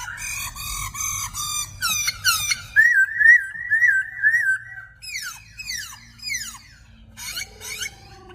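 Birds singing: a varied run of whistled notes. There are quick falling slides and, from about three seconds in, a wavering trill on one high note.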